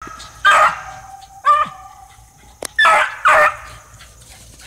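Dogs barking: four loud barks, the first two about a second apart and the last two close together about three seconds in, with a sharp click just before the third.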